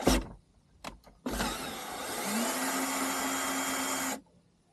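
A power drill runs for about three seconds, its motor tone rising and then holding steady before it stops abruptly. Two sharp clicks come just before it.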